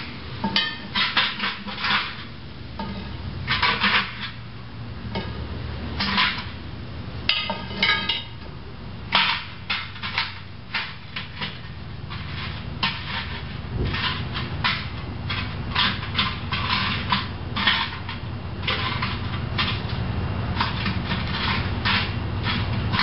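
Metal tongs clinking and scraping charcoal briquettes across a steel fire-pit bowl, a string of irregular clicks and knocks as the coals are pushed into a circle.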